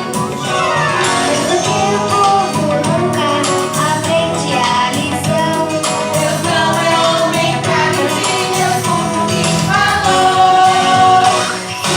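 Voices singing a song with instrumental backing and a shaken tambourine.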